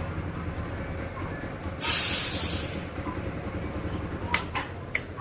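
A hiss, as of a spray or a puff of air, lasting about a second, about two seconds in. Three sharp clicks follow near the end, over a low steady rumble.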